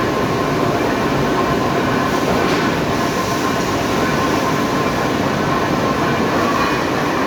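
Large lathe turning a steel TMT rolling-mill roll: a steady, loud machining rumble with a faint held whine.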